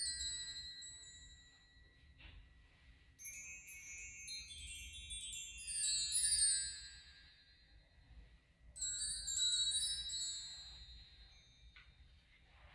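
Small metal chimes tinkling in three clusters of many bright, high ringing notes, each fading away: once at the start, again about three seconds in, and again near the end.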